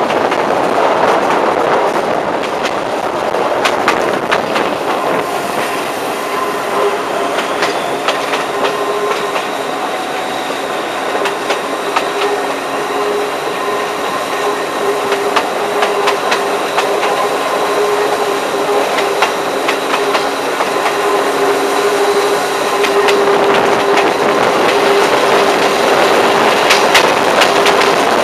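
Metre-gauge diesel railcar running along the track, heard from an open window: wheels clicking over the rails amid steady running noise, with a steady humming tone that grows stronger about a third of the way in. It gets louder in the last few seconds.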